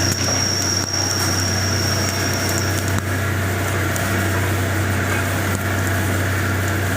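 OC-500V drilling machine running, with a steady low motor hum. A high steady whine sits over the hum and stops about three seconds in.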